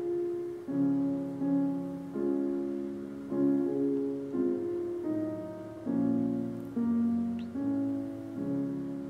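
Soft, slow piano music: sustained chords struck one after another, a new chord a little under every second, each fading before the next.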